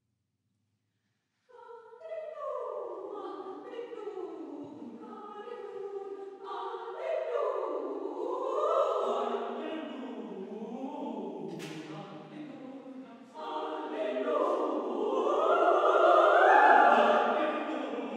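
Choir singing, entering after about a second and a half of silence with many sustained voices that swell twice and are loudest near the end.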